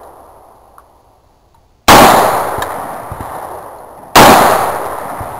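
Two gunshots about two seconds apart, each a sharp crack that trails off slowly over the next couple of seconds.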